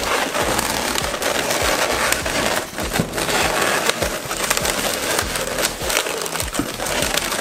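Inflated latex 260 modelling balloons rubbing against each other as hands push one balloon through the others to lock them together: an unbroken run of rubbing with many short clicks.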